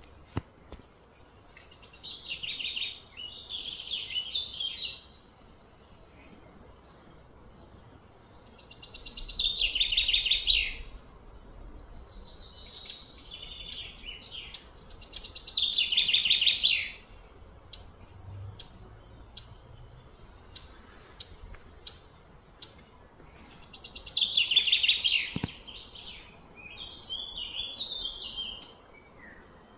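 Birds calling outdoors: a phrase of a few seconds that slides down in pitch comes four times, several seconds apart, with short chirps between.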